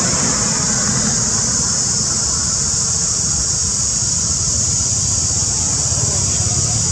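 Steady background noise: a constant high-pitched hiss over a low rumble, with no distinct events.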